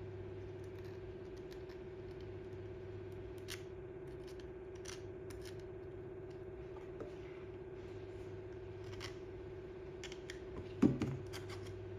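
A hot soldering-iron tip scrapes and smooths melted plastic over stainless-steel mesh on a plastic car trim panel, making faint scattered scratches and clicks over a steady electrical hum. A louder knock comes near the end.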